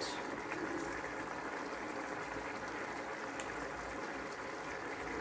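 Coconut-milk curry sauce boiling hard in a pot, a steady bubbling and frothing.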